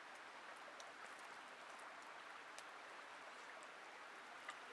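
Near silence: the faint, steady rush of a stream, with a few tiny clicks.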